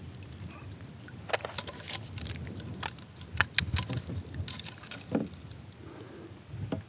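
Scattered sharp clicks and light rattles of fish-handling gear: the metal clip and chain of a hanging fish scale being clamped onto a largemouth bass's jaw and the fish lifted to be weighed.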